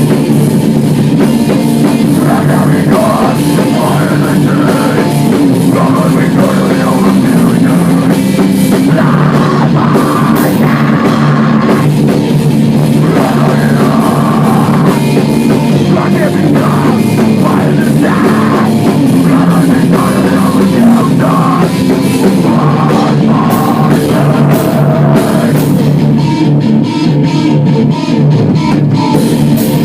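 Loud heavy metal band music playing without a break: pounding drum kit and distorted electric guitars.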